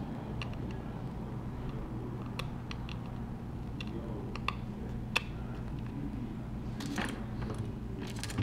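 Scattered small clicks and taps of a small screwdriver and a tiny screw against the metal parts of an iPhone 6 as the motherboard screw is set back in place, a few sharper clicks standing out, over a steady low hum.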